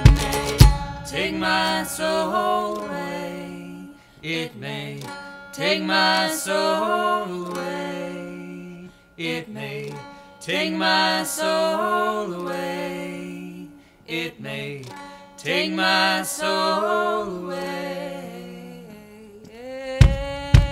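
A quiet stretch of a song: a voice sings four long phrases over a softly plucked small-bodied stringed instrument. Bass drum and tambourine hits stop just after the start and come back near the end.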